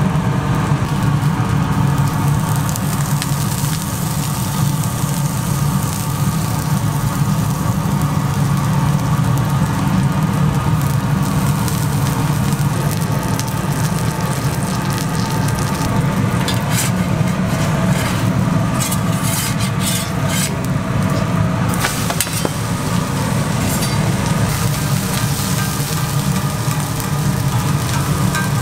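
Pancake batter frying in oil on a flat-top griddle, a steady sizzle over a constant low hum. A few short sharp clicks come about two-thirds of the way through.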